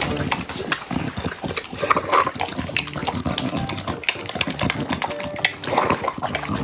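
Two pit bull dogs eating from glass bowls: wet chewing, licking and slurping, with many irregular clicks.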